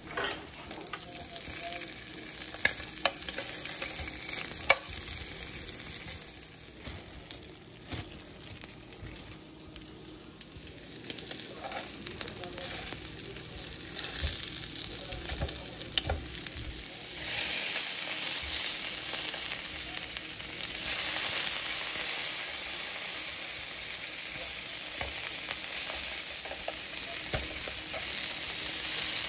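Chorizo sausages sizzling in hot fat in a nonstick frying pan while browning, with occasional clinks of a metal spoon against the pan as they are basted and turned. The sizzle grows louder past the halfway mark.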